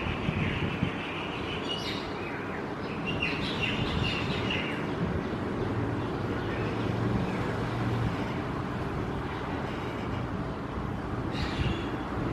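Birds chirping in short clusters near the start, in the first few seconds and again near the end, over a steady background rumble and hiss.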